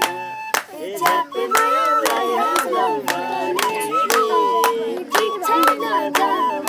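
A boy singing a song, with hands clapping along in a steady beat, about two claps a second.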